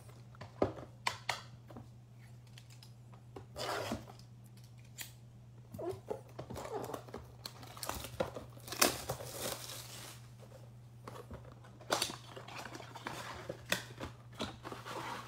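A cardboard trading-card blaster box being cut open along its seal with a small blade, then its flaps pulled open: scattered scraping, tearing and crinkling with a few sharp clicks, over a low steady hum.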